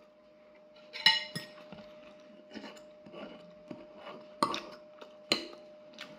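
A metal fork clinking and scraping against a ceramic plate while cutting and picking up food. There is a sharp ringing clink about a second in and two more near the end, with lighter taps between.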